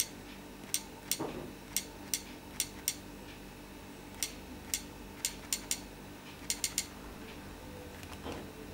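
Typing on a tablet's touchscreen keyboard: about fifteen short, sharp clicks in quick irregular groups, which stop a little before the end.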